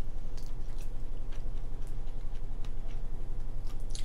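Steady low hum of a washer-dryer running its drying cycle, with scattered small clicks and crackles of shellfish being peeled by hand and chewed.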